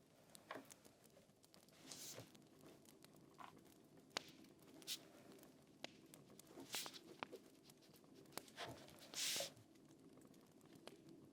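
Faint, sparse crackles and snaps of a fire, with a few short soft rustles, the loudest about nine seconds in, over quiet room tone.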